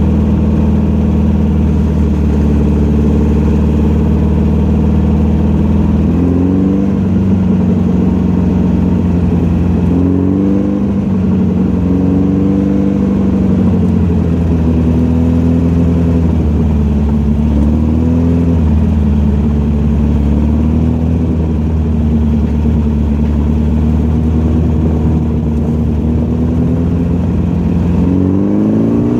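Volkswagen car engine running under load on a racetrack, its pitch mostly steady with several brief dips and rises as the throttle and gears change, then climbing steadily as it revs up near the end.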